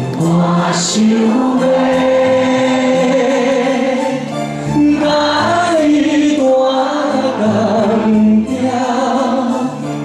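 A man singing into a microphone over instrumental accompaniment, holding some notes with vibrato.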